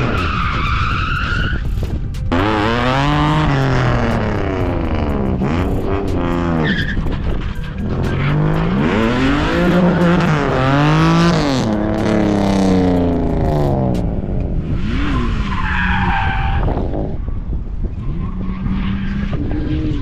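Drift car engine revving hard, its pitch climbing and dropping again and again as the throttle is worked through the slide, with tyres squealing near the start and again toward the end.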